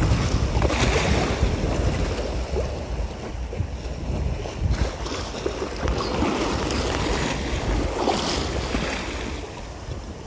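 Wind buffeting the microphone over choppy sea water, with waves lapping; the low rumble eases a little near the end.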